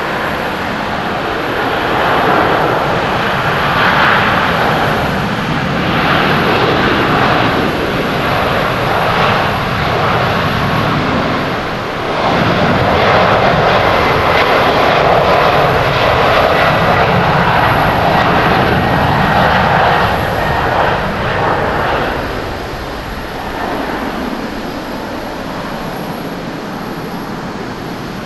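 Boeing 777-300 twin jet engines at takeoff thrust through the takeoff run and lift-off: a loud, steady rushing jet noise that swells as the airliner passes, then fades in the last few seconds as it climbs away.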